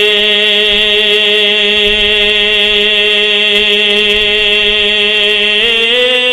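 A man's unaccompanied voice singing a Bangla Islamic gojol, holding one long note at the end of a line, then stepping up slightly with small ornaments about five and a half seconds in.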